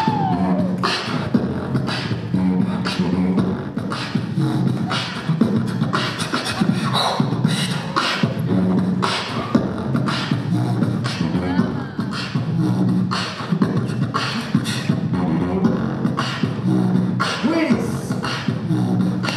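Live beatboxing through a microphone and PA system: a steady beat of vocal kick and snare sounds over hummed bass notes, keeping time for the dancers.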